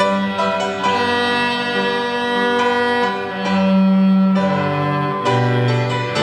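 Cello playing a hymn melody in long held notes, with piano accompaniment.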